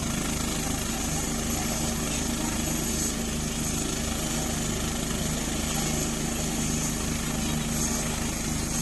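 Helicopter running steadily, its rotor making a rapid, even low beat under a steady engine hum.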